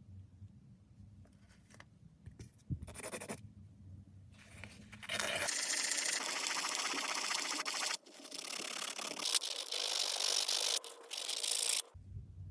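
Scraping, first in a few short strokes, then steady and sustained for about six seconds with a brief break in the middle.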